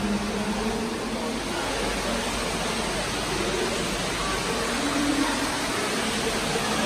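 Steady rush of water falling in a large indoor fountain, with a faint murmur of shoppers' voices.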